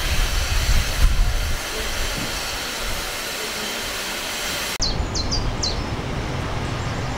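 Steam hissing loudly from around the cylinders of an LMS Stanier Black Five steam locomotive. About five seconds in it gives way abruptly to wind rumbling on the microphone, with a few high chirps.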